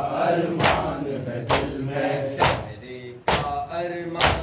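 A male voice leading a nauha (Shia lament) with a group chanting along, over loud synchronized chest-beating (matam): hand slaps on chests landing together about once a second, five in all.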